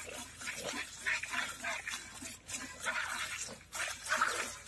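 Cow being milked by hand: streams of milk squirting from the alternating teats into a steel bucket, in spurts about twice a second.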